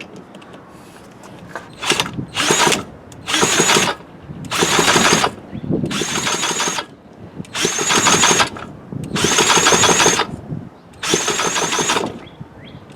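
Mid-1950s Strunk Speed Demon two-stroke chainsaw being cranked on choke with its pull starter, about eight pulls in a row, each a whirring burst under a second long. The engine does not fire.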